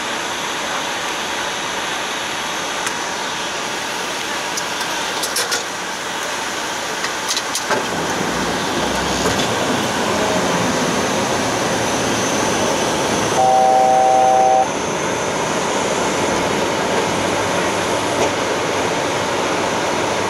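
Steady rush of airflow and engine noise in the cockpit of a Bombardier Global 6000 jet on descent, growing fuller about eight seconds in, with a few light clicks before that. About thirteen seconds in, a loud steady cockpit alert tone sounds for just over a second.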